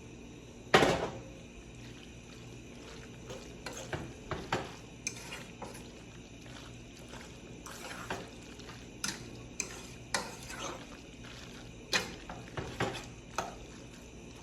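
Metal utensils clanking and scraping against pots and dishes: a run of sharp, irregular clinks, the loudest about a second in.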